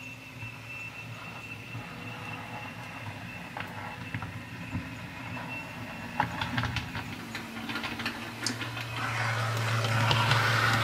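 OO gauge model train, a Heljan Class 128 parcels unit, running along the track: a steady high motor whine with wheels clicking over rail joints. A low steady hum builds up in the last few seconds.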